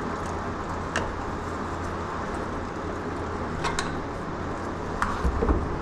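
Steady low mechanical hum with a few light metallic clicks of hand tools on the steering gear, and a dull knock near the end.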